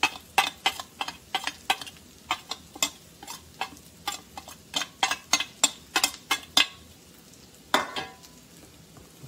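A metal spoon clicking and scraping against a steel plate, about three quick clicks a second for some six seconds, as spice powder is pushed off the plate into a bowl. One last click comes near the end.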